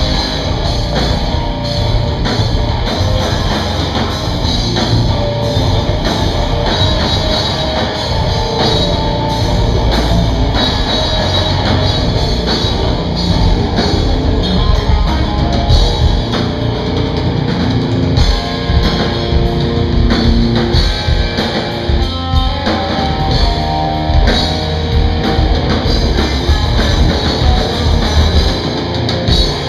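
Rock band playing live: electric guitar and drum kit, loud and dense throughout.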